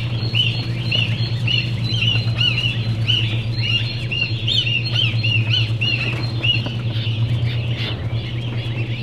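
Many day-old ducklings peeping over one another, short high calls coming several a second, over a steady low hum.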